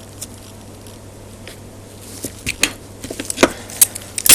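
Vice grips clicking and tapping against the metal parts of an Emotator 1200 rotator as they try to grab hold of a tight part. Quiet at first, then from about halfway a run of sharp metallic clicks and knocks, the loudest near the end.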